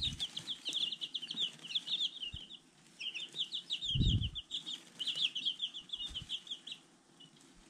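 Week-old chicks peeping in rapid runs of short, falling chirps, pausing briefly about two and a half seconds in, then chirping on until near the end. A soft low thump sounds about four seconds in.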